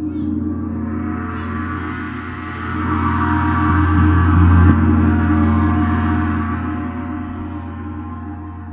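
A large gong ringing, a dense wash of overtones that swells to a peak about halfway through and then slowly dies away.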